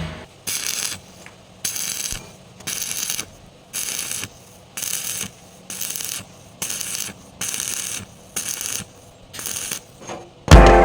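Hand tool scraping on metal in steady back-and-forth work, about eleven strokes roughly one a second, each a short rasping noise lasting about half a second.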